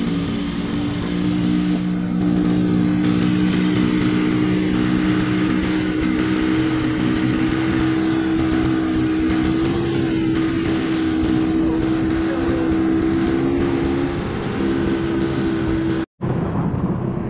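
A speedboat's tiller-steered engine running steadily at speed, with water rushing and spraying along the hull. The sound breaks off for a moment near the end.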